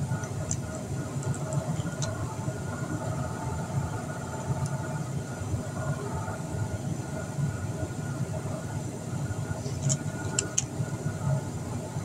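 A steady low mechanical drone with a few faint steady tones in it. A few small sharp clicks of plastic toy pieces being handled come near the end.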